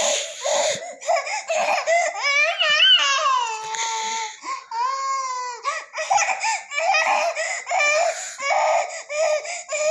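A baby fussing and crying in a high voice, with long wavering wails that rise and fall, then a run of short choppy cries in the second half.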